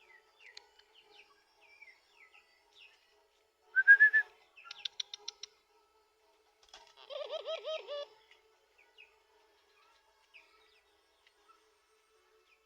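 Tame puter dove calling: a rolling run of low repeated coo notes lasting about a second, some seven seconds in. Before it, about four seconds in, comes a loud short sound with a rising note, followed by a quick run of about six clicks. Faint small-bird chirps are scattered throughout.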